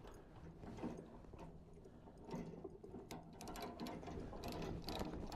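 Rapid metallic clicking of a ratchet chain binder being worked, with chain links clinking, as a transport chain is drawn tight; the clicks get quicker and denser about two seconds in.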